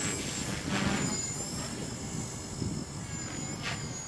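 Electric 450-size RC helicopter in flight: a thin high whine from the brushless motor and gears, wavering in pitch as the head speed changes under load, with two brief swishes of the rotor blades, about a second in and near the end.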